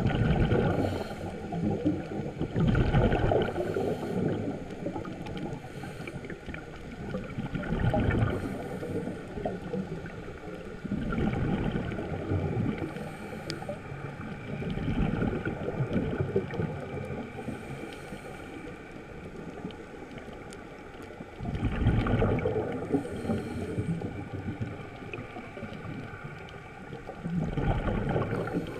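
Scuba diver breathing through a regulator underwater: exhaled bubbles burble out in loud bursts every few seconds, with a fainter hiss of inhalation between them.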